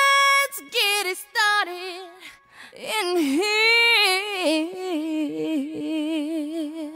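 Unaccompanied solo female singing: one voice holding long notes with vibrato, sliding between pitches.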